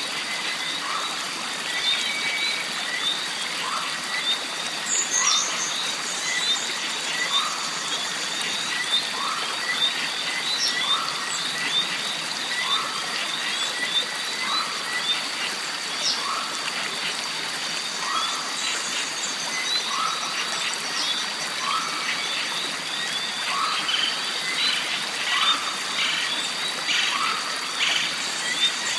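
Jungle stream ambience: water trickling under a dense chorus of wildlife, with a short call repeating about once a second, a steady high-pitched tone, and many small high chirps.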